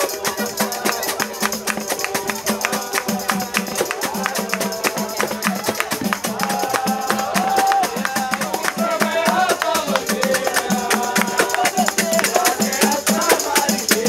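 Live samba from a roda de samba ensemble: pandeiros and hand drums keep a fast, steady rhythm under a strummed guitar. A voice sings a melody over it from about six seconds in.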